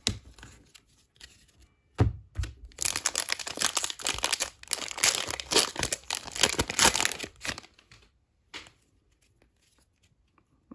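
Cellophane wrapper of a Panini Chronicles Draft Picks cello pack of trading cards being torn open and crinkled by hand, a dense crackling for about five seconds after a light knock about two seconds in.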